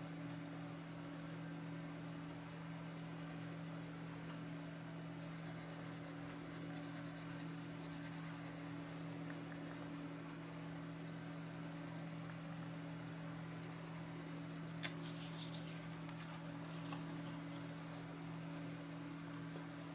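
Coloured pencil shading on textured paper: a fine, rapid scratching of short back-and-forth strokes over a steady low hum. About three quarters of the way through there is a sharp tap, then a few softer clicks.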